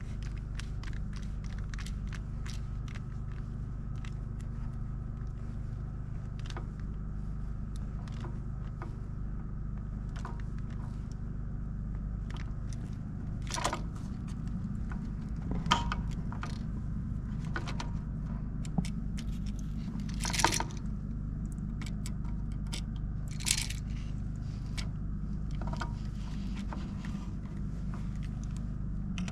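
Scattered small clicks, crunches and scrapes of hand work with tools and wiring parts over a steady low hum. A few sharper clicks stand out in the second half.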